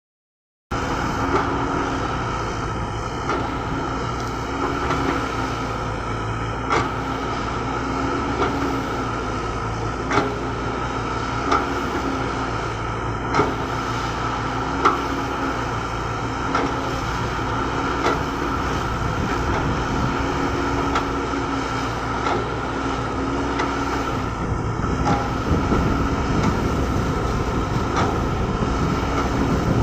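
Caterpillar 120B hydraulic excavator's diesel engine running steadily, its note swelling under load every few seconds as it works. Several sharp metallic clanks stand out above the engine.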